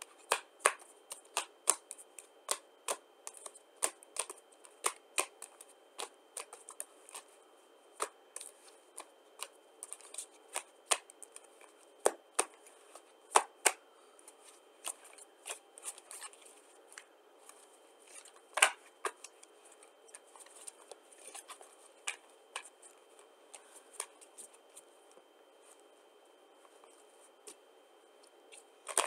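Playing cards being dealt and played down one at a time onto piles, each landing with a sharp snap. The snaps come about two a second at first, then more sparsely.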